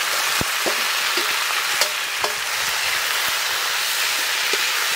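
Chopped mustard greens sizzling in hot mustard oil in a metal kadai, with a few sharp clicks of a metal spatula stirring them against the pan.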